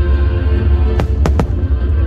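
Fireworks going off, three sharp bangs in quick succession about a second in, over loud show music with a heavy bass.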